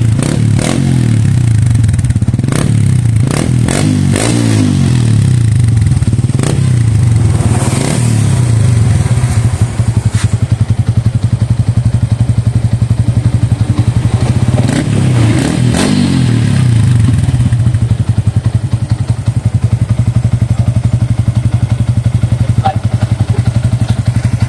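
Yamaha Sniper 150's single-cylinder four-stroke engine running through an aftermarket Replica Pro exhaust, idling steadily and blipped up in revs a few times, about three and eight seconds in and again around fifteen seconds, with a few short sharp pops in the first half.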